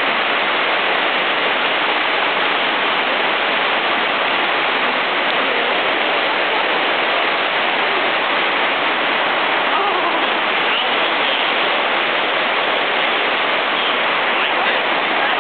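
Heavy rain pounding on a barn roof, a steady, unbearably loud hiss that does not let up.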